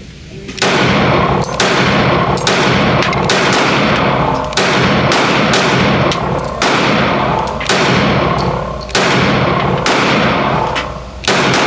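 Glock 32 pistol firing .357 SIG rounds in slow, steady succession: about eleven shots roughly a second apart, each followed by a long echoing tail.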